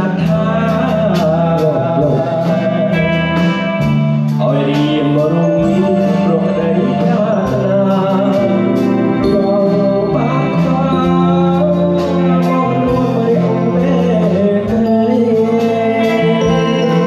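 Live band music: a man singing through a microphone and PA over keyboard, guitar and drums, with a steady beat of about two drum strokes a second.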